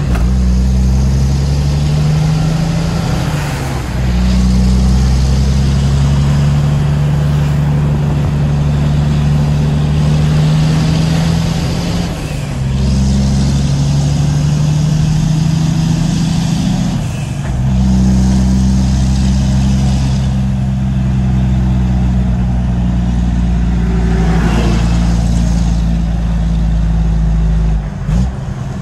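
Tractor-trailer's diesel engine droning inside the cab as the truck climbs a mountain road. The engine note drops and rises a few times.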